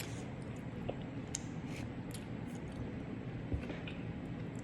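Quiet eating sounds from a person working on neck bones: soft chewing and sucking with scattered small clicks, over a steady low background hum.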